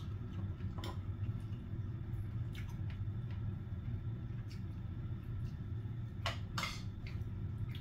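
A person eating: wet chewing and a few short clicks of utensils, the two loudest clicks close together about six seconds in, over a steady low hum.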